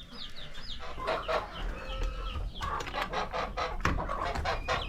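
Cornish cross chicks peeping, a steady scatter of short, falling, high chirps, with sharp clicks and knocks of handling through the second half.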